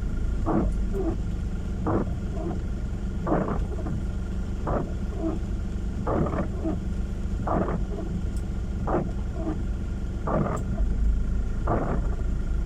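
Car windshield wipers sweeping across rain-wet glass, one sweep about every one and a half seconds, over the steady low rumble of the car and road heard inside the cabin.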